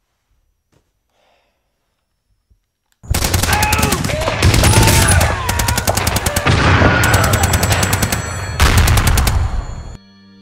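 About three seconds of near silence, then loud rapid automatic gunfire from a video game for about seven seconds, stopping suddenly.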